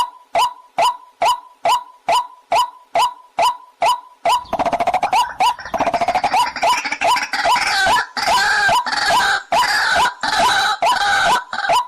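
Recorded waterhen call used as a hunting lure: a short, clucking note repeated about two and a half times a second. About four seconds in, a denser, harsher chorus of overlapping calls joins over the repeating notes and stops just before the end.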